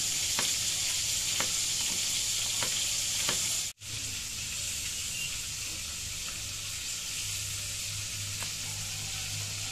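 Salted peda fish frying in hot oil in a wok: a steady sizzle with a few faint taps. The sound cuts out for a moment just under four seconds in, then the sizzle resumes.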